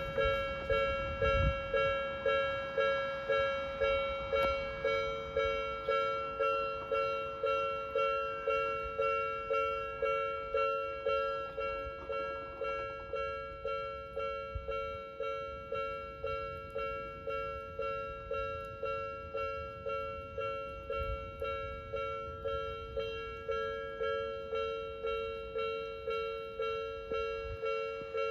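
Japanese railway level-crossing warning bell ringing: an electronic ding struck evenly about twice a second, each strike decaying before the next, going on steadily while the crossing is closed.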